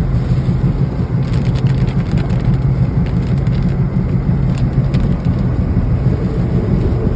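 Steady low rumble of a car driving, heard from inside the cabin, with scattered light taps of rain on the car between about one and five seconds in.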